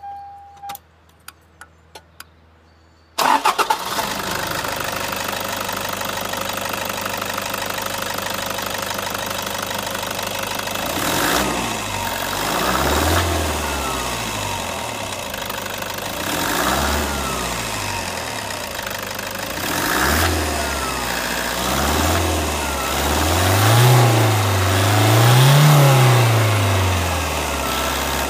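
Toyota Hilux 2KD-FTV 2.5-litre four-cylinder turbo diesel started: a short beep and a few faint clicks, then the engine fires about three seconds in and idles. From about eleven seconds on it is revved in about six blips, each rising and falling back to idle, the last two the highest and longest.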